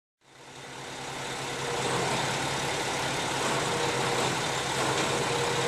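An engine running steadily at idle, fading in over the first two seconds and then holding an even level.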